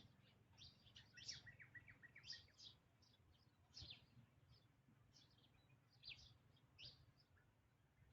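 Faint birds chirping: scattered short, high chirps throughout, with a quick run of chirps a little over a second in.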